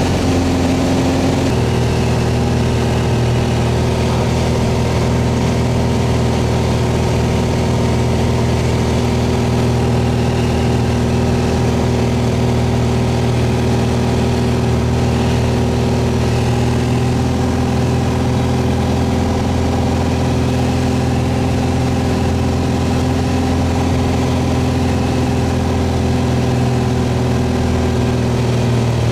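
Piper Arrow's four-cylinder engine and constant-speed propeller droning steadily, heard inside the cockpit on final approach. The engine note shifts slightly about a second and a half in.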